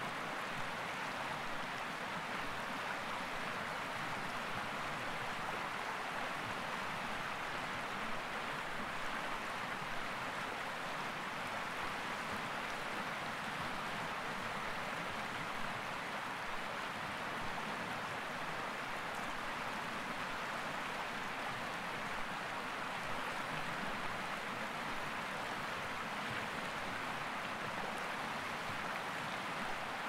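Shallow mountain river running over rocks: a steady, even rush of water.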